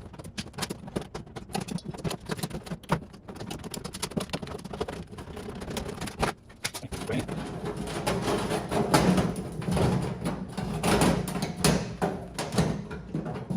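Thin galvanized sheet metal being worked by hand: a run of irregular metallic clicks and crinkles as the tabs of a duct starting collar are bent over.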